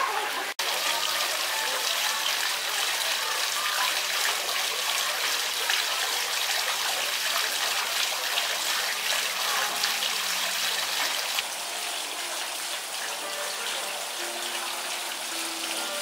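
Steady splashing of running water from a garden fountain.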